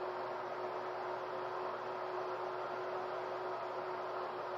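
Steady background hiss with a faint constant hum tone, unchanging throughout: the recording's own noise floor between lines of dialogue.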